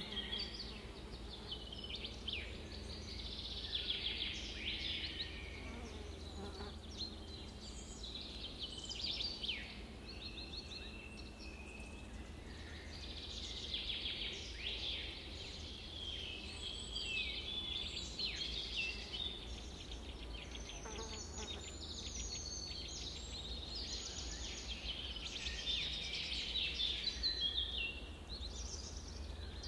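Chorus of songbirds chirping and trilling, many short overlapping calls and rapid trills throughout, over a faint steady low hum.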